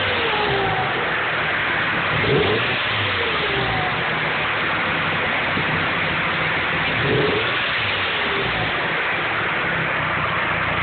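Nissan SR20DET redtop turbocharged 2.0-litre four-cylinder with a T25 turbo, idling with a loud steady hiss. It is blipped twice, about two seconds in and again about seven seconds in, and each blip is followed by a falling whine as the turbo spins down. This is the weird turbo noise on an engine whose turbo has no shaft play but a cracked elbow.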